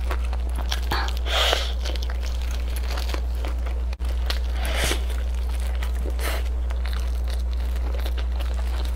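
Close-miked eating sounds: chewing and tearing into fried fish, with crinkling of disposable plastic gloves and small wet clicks. Two louder rustles come about a second and a half in and just before the five-second mark, over a steady low hum.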